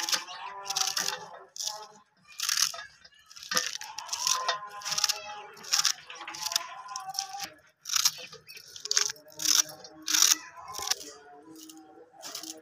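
A knife cutting through crisp green spinach stems held in the hand, with a sharp crunch at each stroke, about two a second, thinning out near the end. Soft background music plays underneath.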